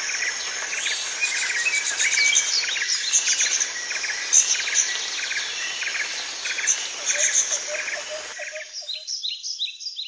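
Birds chirping in quick repeated calls over a steady hiss, as in a tropical-forest ambience recording; the hiss drops out about eight seconds in and the last few chirps fade away near the end.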